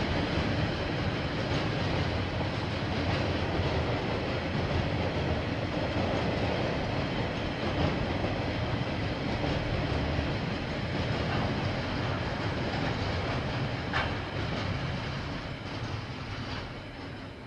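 KiwiRail train rolling past, its wheels running steadily on the rails, with one sharp click about fourteen seconds in. The sound fades away near the end as the train moves off.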